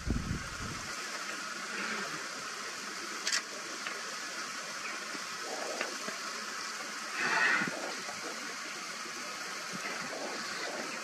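Outdoor ambience at a river pool where African elephants are drinking: a steady hiss. About seven seconds in comes one short, louder rush of noise, with a faint click a few seconds earlier.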